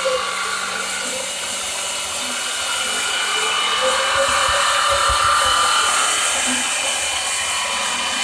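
A power tool running steadily with a high whine, its pitch wavering slowly as if under changing load.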